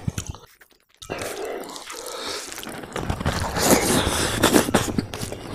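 Close-miked wet eating sounds: a person chewing and slurping katla fish head and rice, with dense sticky smacks and crackles. After a brief pause about half a second in, they grow louder in the second half.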